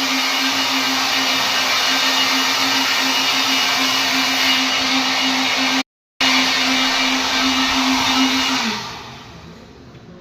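S.F.X sparkle swing machine running steadily with a hum and a hiss, turning smoothly now that its sticking fault has been fixed. The sound cuts out for a moment about six seconds in. Near the end the hum drops in pitch and the machine winds down.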